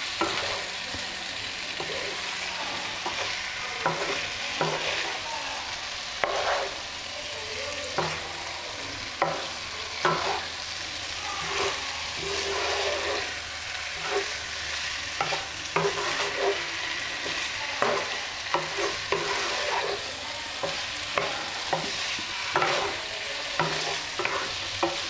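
Wooden spatula stirring and scraping paneer, onions and peppers around a non-stick kadai, making repeated scrapes and knocks about once a second over a steady sizzle of frying masala.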